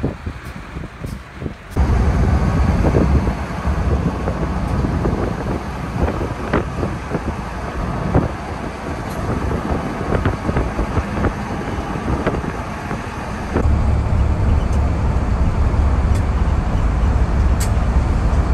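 EMD and GE diesel-electric freight locomotives running, with a deep engine rumble and a few sharp clicks. The rumble is quieter for the first two seconds, then loud with the locomotives idling, and from about fourteen seconds in a steadier, heavier rumble as a locomotive consist rolls past. Wind buffets the microphone.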